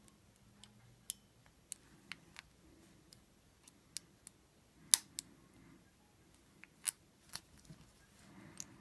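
Irregular sharp metallic clicks of lock picks working in an old Yale wafer padlock as the wafers are picked one by one, with the loudest click about five seconds in.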